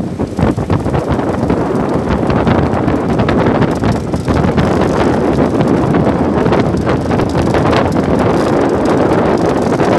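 Wind rushing hard across the microphone aboard a moving boat: a loud, steady roar of wind buffeting with no clear engine note above it.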